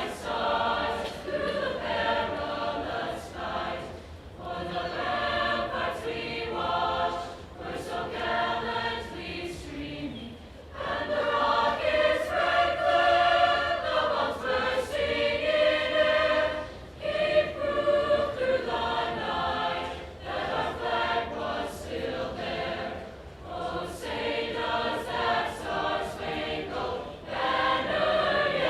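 High school choir singing the national anthem, in long held phrases with brief breaks between them.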